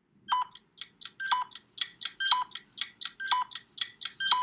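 Electronic ticking sound effect of quick, short ticks, several a second, with a louder pitched beep about once a second, like a quiz countdown timer.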